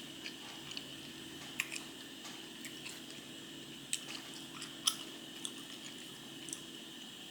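A person chewing food close to the microphone: scattered soft wet clicks and crunches, the loudest about four and five seconds in, over a steady low hum.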